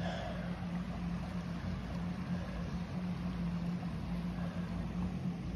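Shallow creek water rushing steadily over a gravel riffle, with a steady low hum underneath.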